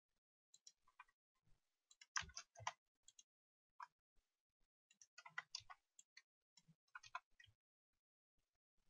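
Scattered clicks of a computer mouse and keyboard keys, in small clusters of a few at a time against near silence.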